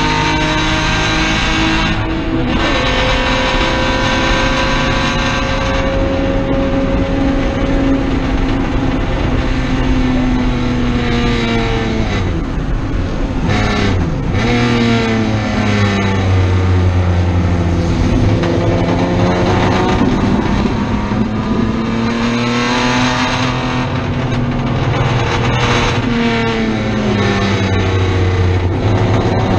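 Race car engine heard from inside the cockpit at high revs. There is an upshift about two seconds in, then a steady hold for several seconds. After that the pitch falls under braking and downshifts and climbs again under acceleration, several times over.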